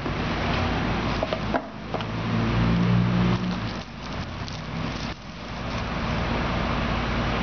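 Steady low mechanical hum with a hiss over it, its pitch shifting at abrupt breaks about one and a half and five seconds in, with a few faint clicks of packaging being handled.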